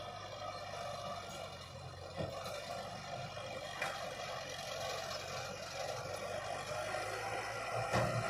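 Diesel engine of heavy earthmoving machinery running steadily, with a few sharp knocks.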